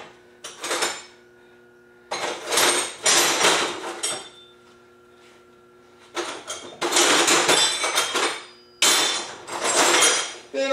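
Steel hand tools clanking and rattling against one another in four bursts, each leaving a short metallic ring.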